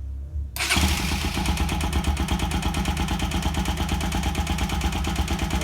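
Bajaj Rouser NS 200's single-cylinder engine catches about half a second in, then idles with a fast, even beat. It runs on the fuel left in the carburettor, and the harsh intake noise comes through the air-filter housing with its cover fitted, which the mechanic takes for the normal intake sound of this rather noisy bike, not a mechanical fault.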